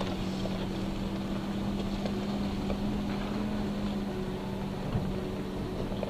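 Toyota Tacoma pickup's engine running steadily at low speed as the truck crawls over a rocky dirt track, heard from inside the cab, with small knocks and rattles and one thump about five seconds in.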